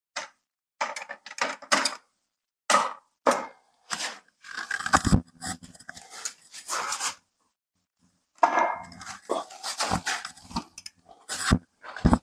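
Stainless-steel tripod being fitted onto its wheeled dolly base: metal clicks, knocks and scraping of the legs and clamps, in short clusters with dead-silent gaps between them.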